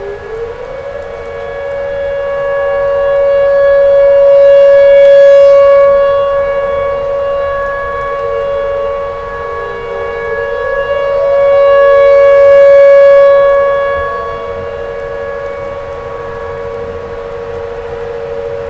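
Tornado warning siren sounding a steady wail, swelling louder and fading twice about eight seconds apart, with a weaker tone sliding up and down beneath it.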